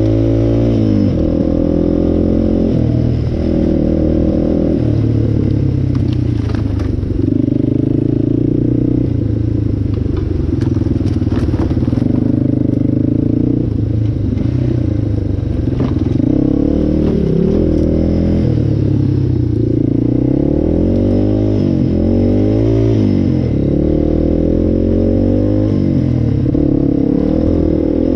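Yamaha Raptor 700 ATV's single-cylinder four-stroke engine running under the rider, its pitch rising and falling as the throttle is opened and closed. A few short clicks and clatters come through near the middle.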